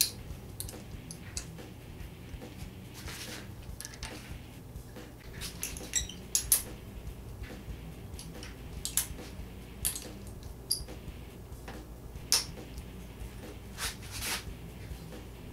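Irregular metal clinks and clicks as windshield mounting clamps and their bolts are handled and fitted by hand onto a motorcycle's chrome fork tubes, with a few short scrapes. A steady low hum runs underneath.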